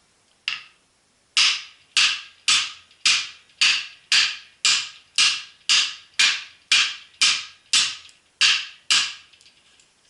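A 6 mm ceramic glass grinder platen being struck hard over and over to break it: a single blow, then a run of about fifteen sharp, ringing blows at about two a second.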